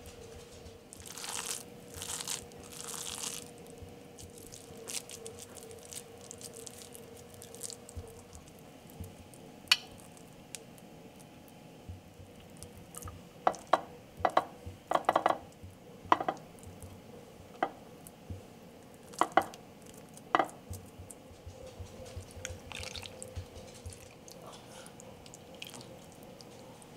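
Hands pressing raw minced-beef mixture into patties and setting them down in a glass baking dish: soft squishing handling noise, then a run of sharp clicks and taps against the glass about halfway through, over a faint steady hum.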